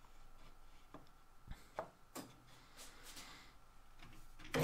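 Faint, scattered knocks and clicks of wooden frame pieces being handled and set against a miter gauge on a steel table-saw top. At the very end a power tool starts running.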